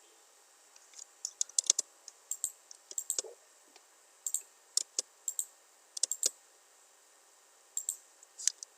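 Computer keyboard keys and mouse buttons clicking in irregular bursts, as when typing and clicking.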